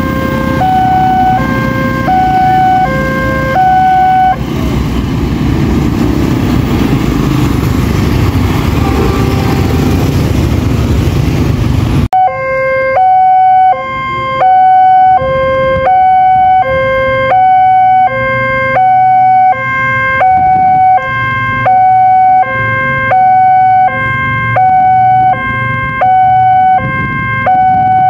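Railway level-crossing warning siren sounding a shrill, tinny two-tone alarm that alternates high and low about once every second and a half. For roughly the first twelve seconds a loud rumbling rush runs underneath, then stops abruptly, leaving the siren clear.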